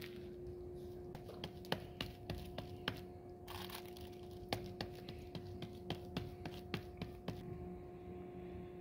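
Irregular light taps and soft clicks of hands patting and working maize (corn-flour) dough for makki di roti, over a steady low hum.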